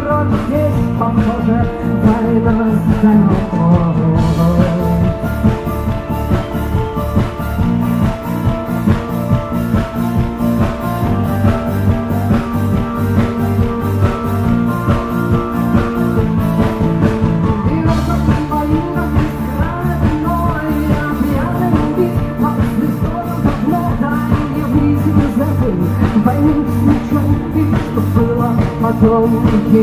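Live rock band playing: a woman sings lead over acoustic-electric guitar and a full band with a steady drum beat.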